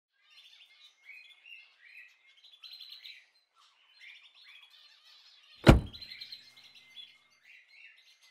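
Small birds chirping on and off, and a little past halfway one loud thunk, a pickup truck door being shut.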